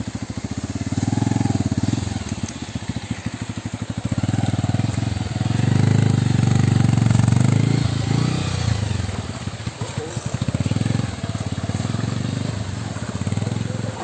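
Motorcycle engine running at low revs on a rough off-road trail, its note swelling and dipping every few seconds as the throttle opens and closes.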